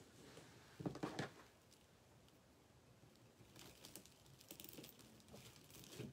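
Faint rustling and crinkling of deco mesh being handled and fluffed, with two soft bumps about a second in.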